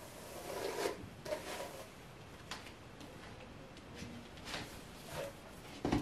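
Long hair swishing and rustling as it is tossed and smoothed by hand: a string of short, soft swishes, the loudest near the end.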